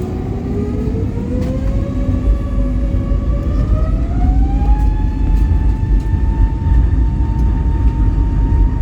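Airbus A320neo's CFM LEAP-1A engines spooling up to takeoff thrust, heard from inside the cabin: the fan whine rises in pitch over about five seconds, then holds steady over a deep rumble.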